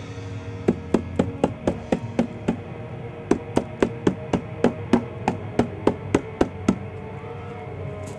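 A hand slapping a hollow plastic jug in quick, evenly spaced knocks, about four a second, in two runs with a short break between them.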